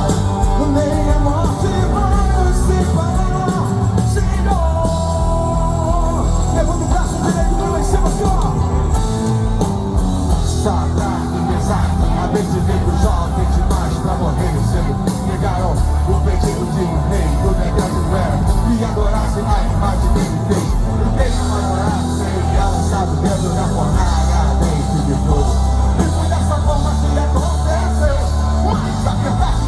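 Amplified live band music with a singer, strong bass and percussion, loud and continuous.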